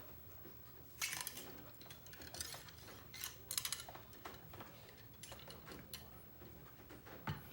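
Scattered metallic clinks and scrapes from handling the cleaning rod and tools while running a clean patch through a CVA Wolf muzzleloader's barrel.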